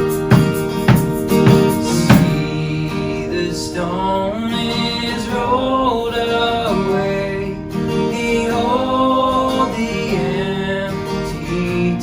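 Worship band music: acoustic guitar strummed in sharp strokes for the first couple of seconds, then a melody line gliding between held notes over sustained chords.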